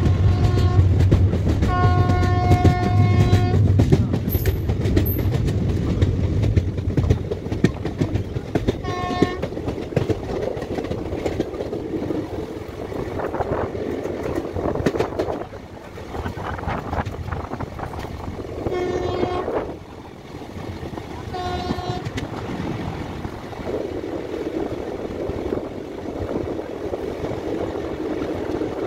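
A passenger train running on the rails, heard from the open door of a moving coach: a steady rumble with wheel clatter. A train horn sounds several times: a short toot, a longer blast about two seconds in, then three more short toots spread through the rest.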